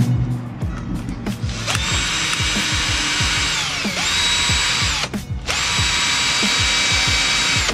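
Ozito cordless drill driving screws up into a car's front bumper lip: the motor whine starts a couple of seconds in and comes in three runs, each dropping in pitch as the trigger is let off, the last running on to the end.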